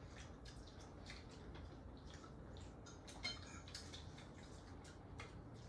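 Faint, scattered clicks of forks and spoons against plates during a meal, over a quiet room background. A slightly louder clink comes about three seconds in.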